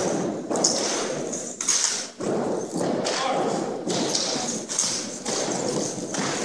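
JROTC drill team's boots and drill rifles thudding and tapping on a wooden gym floor, with knocks falling every half second to a second.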